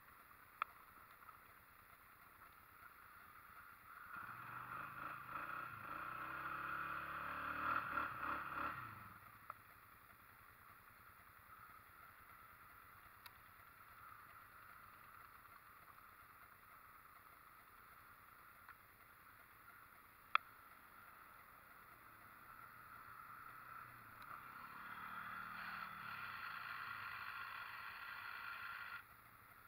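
ATV engine running faintly in two spells, its pitch rising and falling as it revs, with near silence between them. A single sharp click stands out about twenty seconds in.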